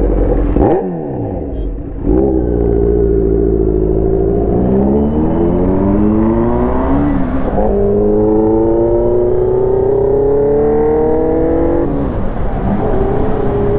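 Motorcycle engine accelerating hard through the gears as the bike is ridden. The pitch climbs steadily and drops sharply at each upshift, twice, with a short roll-off about a second in.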